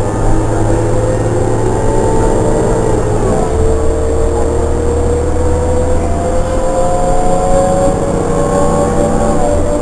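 Cummins C Gas Plus engine and Voith D864.3 transmission of a New Flyer C40LFR bus, heard from inside the cabin, accelerating: a whine climbs steadily in pitch and drops back at a gear shift about three seconds in, then climbs again and drops at another shift near the end.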